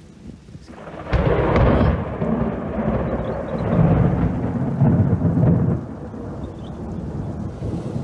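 A thunderclap about a second in, rumbling on in swells for about five seconds before easing off, with steady rain behind it.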